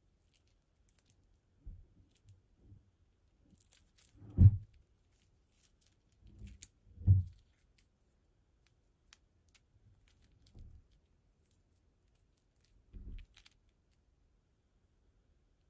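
Close-up handling of a beaded bracelet on an elastic cord as it is tied and put on a wrist: a few soft, dull thumps and rubs, the loudest about four and seven seconds in, with faint clicks of the beads.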